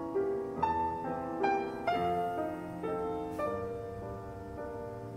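Soft piano music: single notes and chords played one after another and left ringing.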